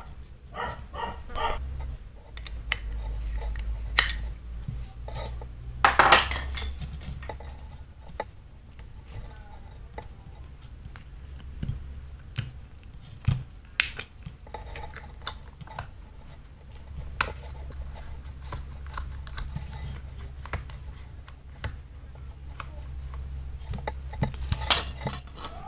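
Hands handling the plastic parts of an LED bulb, pushing wires into its screw-base cap and fitting the cap to the housing: scattered clicks and knocks of hard plastic, with a louder clatter about six seconds in and again near the end.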